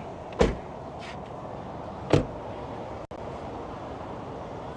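Two sharp clunks from the 2016 Kia Rio's body latches, as the car is opened up to get at the engine bay, about two seconds apart, the second louder.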